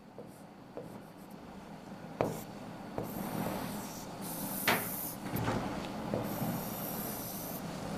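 Pen stroking across an interactive whiteboard: two spells of scratchy rubbing as lines are drawn, one about three seconds in and one about six seconds in, with a few light knocks of the pen tip.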